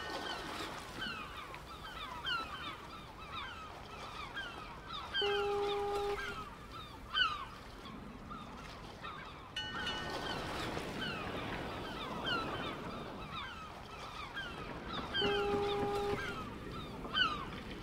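A flock of geese honking, many short falling calls overlapping, with a longer held note about five seconds in and again about fifteen seconds in. The same stretch of recording repeats after about ten seconds, as a looped sound effect.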